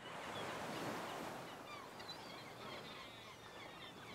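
Faint outdoor ambience with many small birds chirping and twittering over a soft, steady background hiss.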